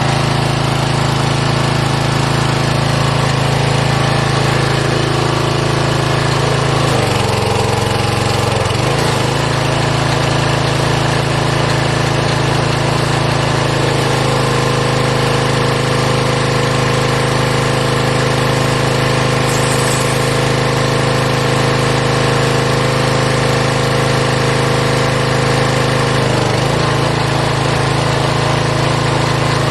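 Small gasoline engine of a pressure washer running steadily. Its pitch dips briefly about seven seconds in, and its tone shifts about halfway and again near the end.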